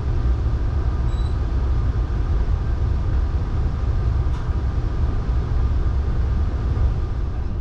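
Saphir Odoriko sightseeing train, an E261 series electric multiple unit, running along the line: a steady low rumble of wheels on rails.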